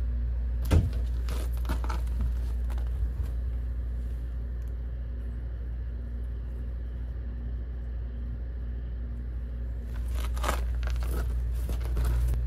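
A steady low hum, with brief rustles and knocks about a second in and again near the end as a strip of deer meat is handled and hung on a fishing hook in an emptied refrigerator.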